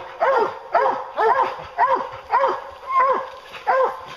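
English hound barking at a treed black bear: short, loud barks, each rising and falling in pitch, about two a second in a steady rhythm. This is the bark hunters listen for when the bear is treed.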